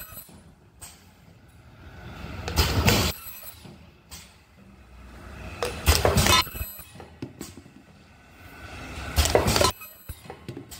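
Semi-automatic ultrasonic tube filling and sealing machine working through its cycle: a loud rush of noise swells up and cuts off about every three seconds, three times, each followed by a sharp click.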